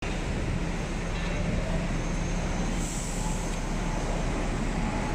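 Street traffic noise: a steady low rumble of running vehicle engines, with a short hiss about three seconds in.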